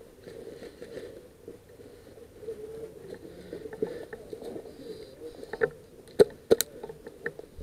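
Movement through dry brush, with branches and leaves brushing against gear, then a few sharp snaps, the two loudest close together about six seconds in.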